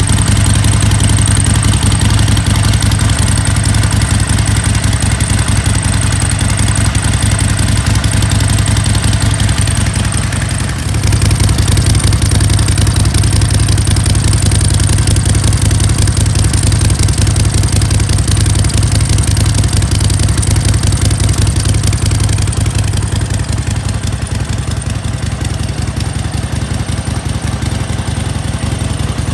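Harley-Davidson XL1200V Sportster Seventy-Two's 1200 cc air-cooled V-twin idling steadily, heard close to its chrome exhaust. The level dips briefly about ten seconds in and is a little lower near the end.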